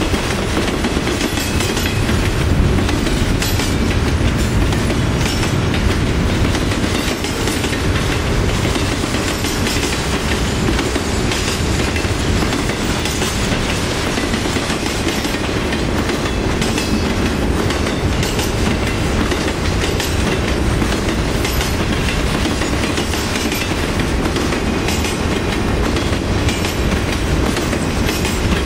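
Intermodal freight train's container and trailer cars rolling past at speed: a steady, loud rumble of steel wheels on rail, with a continual run of clicks from the wheels over the rail.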